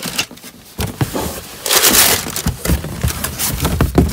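Crumpled brown packing paper rustling and crinkling as hands dig through a cardboard box, with a few dull knocks of items and cardboard being handled. The rustling gets louder and denser a little under halfway through.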